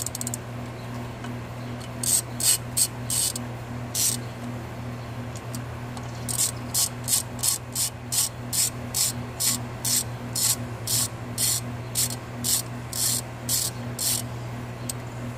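Hand ratchet wrench ratcheting in short, quick strokes as bolts are run down. There are a few strokes, then a pause, then a steady run of about two to three strokes a second, over a steady low hum.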